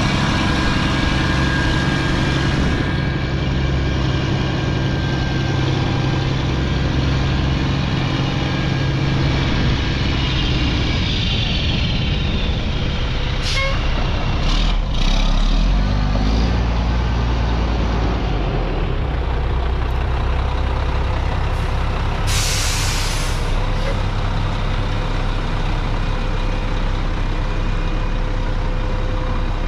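1999 Mack concrete mixer truck's diesel engine running steadily, with a few sharp clicks near the middle and a short hiss of air about two-thirds of the way through.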